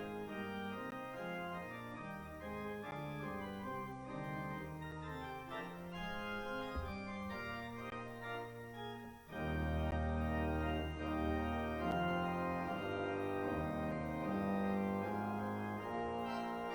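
Church organ playing a postlude after the benediction: held chords, growing louder and fuller about nine seconds in.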